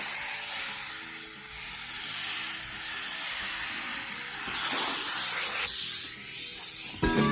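Car wash vacuum hose sucking air with a steady hiss that dips a little over a second in. Background music, faint at first, comes up loudly near the end.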